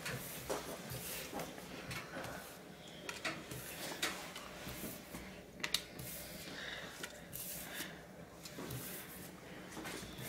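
Paper raffle labels being picked up off a tabletop one by one and dropped into a plastic basin: soft paper rustles and light irregular taps and clicks.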